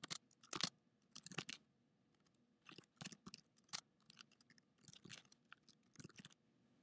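Faint typing on a computer keyboard: runs of key clicks in short bursts with brief pauses between them, as a command is typed at a terminal.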